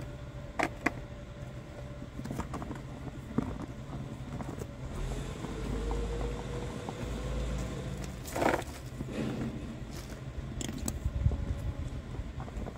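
Handling clicks and rustling as a pump hose nozzle is fitted into the air valve of an inflatable kayak's chamber, with a few sharp plastic clicks and one louder scuffing burst. A low rumble runs underneath in the middle.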